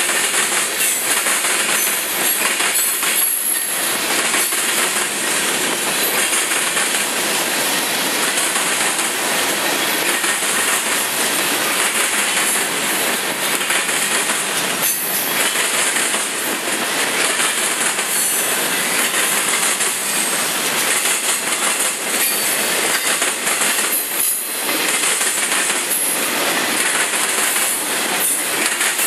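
Freight train of tank cars and covered hoppers passing close by: a loud, steady rolling rumble of steel wheels on the rails, with clickety-clack from the wheels crossing rail joints.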